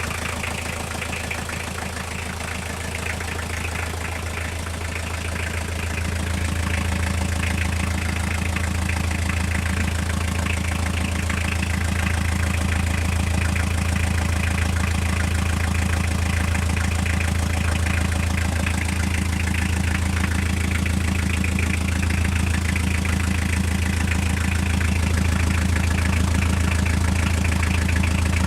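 Toyota diesel engine idling with a rapid, even knock running through it, the fault the owner is trying to trace. It gets a little louder about six seconds in.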